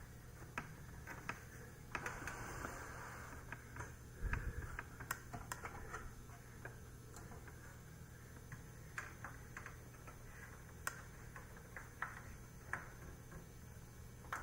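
Faint scattered clicks and light taps from hands working on a desktop computer, with a dull thump about four seconds in, over a steady low hum.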